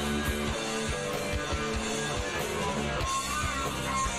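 Background music: guitar-led rock with a steady beat.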